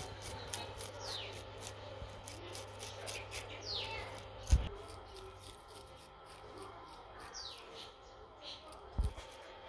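Yellow fish scaler raking scales off a fish on a wooden chopping board in short, quick strokes, two or three a second. Birds give a few quick falling chirps, and two dull thumps, the loudest sounds, come about halfway and near the end.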